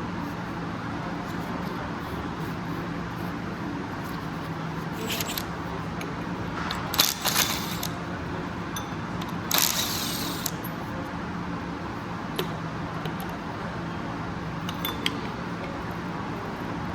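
Metal tools and engine parts clinking and rattling as they are handled, with the loudest clinks around the middle and a rattle lasting about a second just after. A steady low workshop hum runs underneath.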